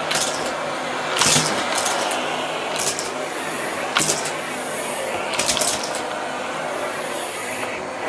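Miele canister vacuum cleaner running steadily over carpet, with several short, high crackling rattles as small bits are sucked up through the floor head.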